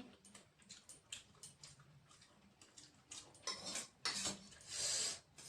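Faint eating sounds: small clicks and taps of food and utensils against a plate, with a few short hissing noises about two-thirds of the way through.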